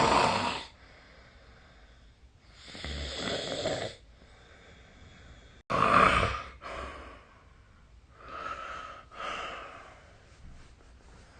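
A sleeping person snoring, one snore every two to three seconds. The loudest starts abruptly about six seconds in, and two softer ones follow close together towards the end.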